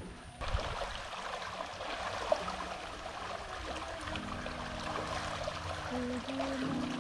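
Steady outdoor background hiss that starts suddenly just under a second in, with one sharp click about two seconds in. Background music with held notes comes in about four seconds in.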